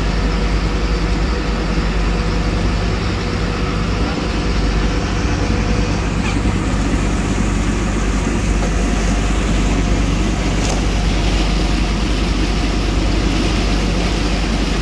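Engine drone of a sportfishing boat running at speed, steady and loud, mixed with the rush of water from the hull and wake.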